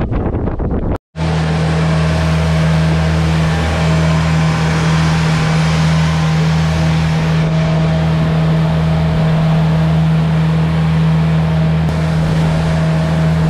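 Boat motor running steadily at constant speed, a deep even hum over a steady rushing hiss; it starts abruptly about a second in.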